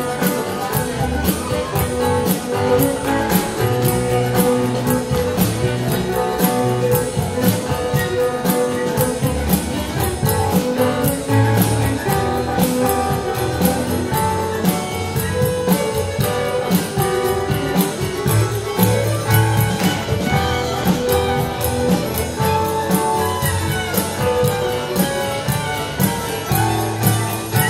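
Live contra dance band playing a tune with a steady beat. Guitar is to the fore, over keyboard and hand-drum percussion.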